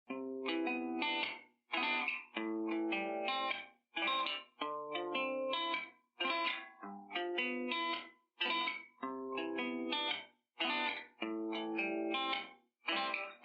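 Background music led by a plucked, effects-laden guitar, playing a repeating phrase broken by short pauses.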